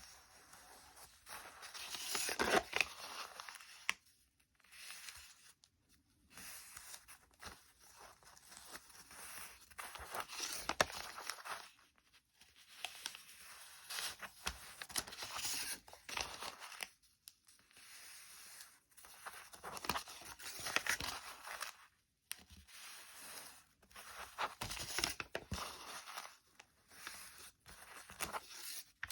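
A sheet of paper being folded and creased by hand. It comes as irregular rustling and scraping bursts of a second or two, with short pauses between them.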